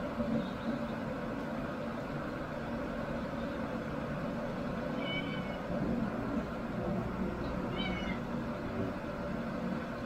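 A cat gives two short, thin, high-pitched meows, about five and eight seconds in, over a steady background hum.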